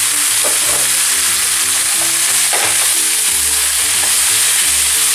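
Zucchini ribbons sizzling in olive oil in a frying pan with a steady hiss, with stirring by a spatula in the pan a few seconds in.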